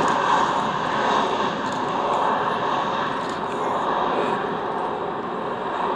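Boeing 747-400's four Rolls-Royce RB211-524G2 turbofans at takeoff power as the jet climbs away, a broad, steady rumble that slowly fades.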